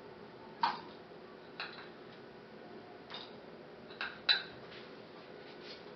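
A metal spoon clinking lightly against the bowls while gram flour is spooned into a stainless-steel mixing bowl: about five short taps spread out, two of them close together near the end.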